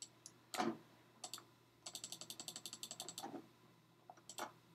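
Faint computer mouse and keyboard clicks. A few single clicks come first, then a quick run of about a dozen clicks over a second and a half, then a couple more near the end.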